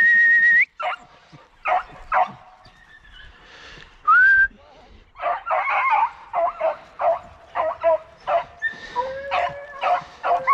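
A loud steady whistle at the start, then a short rising whistle about four seconds in. From about five seconds on, a pack of hunting hounds barks and yelps in quick, repeated bursts.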